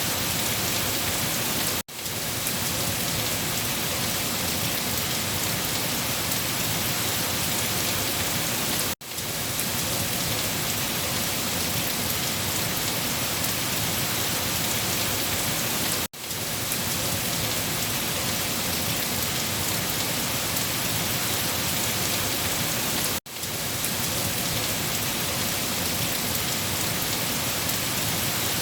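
Steady, dense rain falling. The sound dips out for an instant about every seven seconds.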